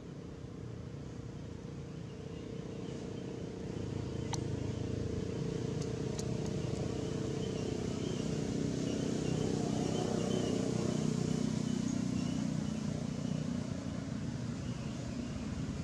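Low engine rumble of a passing motor vehicle. It grows louder from about four seconds in, peaks around ten seconds, then slowly eases off.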